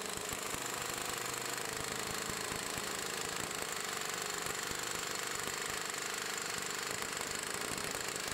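Astro Onyx pneumatic palm impact wrench hammering continuously at full throttle in reverse against a torque dyno, a dense even rattle of rapid impacts with air hiss, during a 10-second max torque run.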